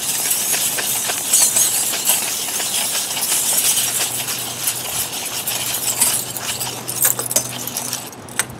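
Long 100-foot tape measure being wound back into its case, the tape sliding through a rag with a steady scraping hiss and rapid clicking from the winding. It slows and stops near the end.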